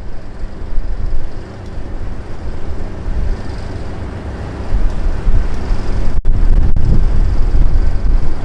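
Heritage diesel locomotive running with a steady low rumble, wind buffeting the microphone; louder from about five seconds in.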